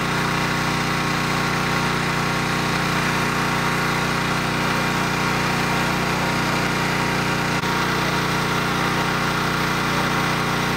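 Steady drone of a running engine-driven machine, holding one even pitch with several tones.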